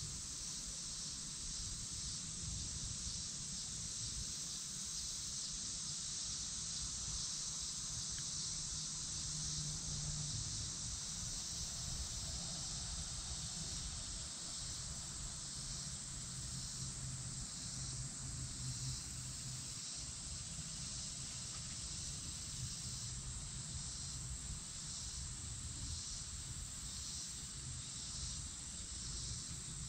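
Summer insects buzzing in a steady high chorus, with a faint regular pulsing in the second half, over a low rumble.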